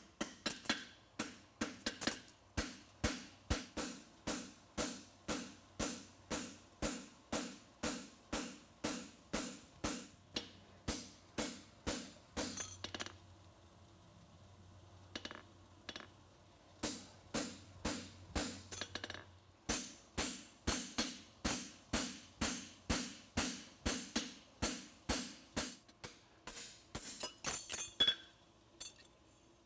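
Farrier's hammer striking a steel horseshoe on an anvil in a steady rhythm of about two to three ringing blows a second. The blows break off for a few seconds in the middle, start again, and stop once more near the end.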